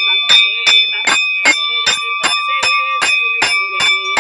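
Puja bell rung steadily by hand, about two to three strikes a second, its ringing tone carrying on between strikes.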